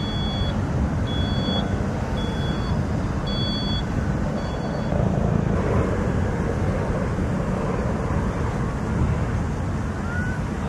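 A steady low rumbling noise with five short, high two-tone beeps about a second apart during the first five seconds.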